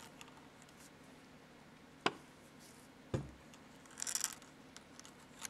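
Faint handling noises of small nail art tools over quiet room tone: a sharp click about two seconds in, a dull knock a second later, and a brief scratchy rustle near four seconds.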